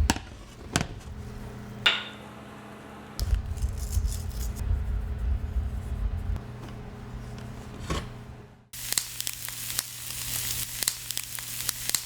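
Ribeye steak sizzling and crackling in a cast iron grill pan. For the first two-thirds the sizzle is faint, with a few sharp clicks and some low handling rumble. The dense crackling sizzle cuts back in suddenly about two-thirds of the way through.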